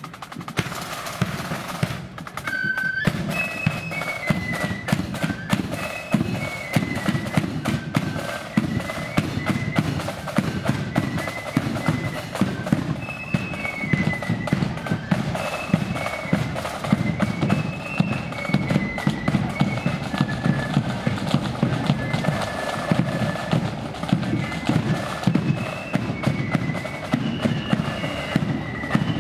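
Marching flute band playing a tune: flutes carry a high melody over rapid snare drumming and the thud of a bass drum.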